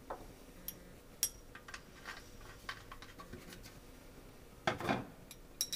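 Small clicks and taps of glass labware being handled as a glass pipette is held in a glass Erlenmeyer flask. A louder brief handling noise comes near the end, followed by sharper glassy clinks.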